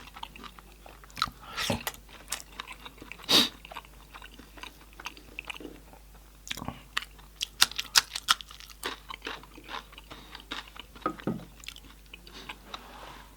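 Close-up chewing and biting on cooked goat head meat: irregular sharp mouth clicks and smacks, the loudest a little over three seconds in.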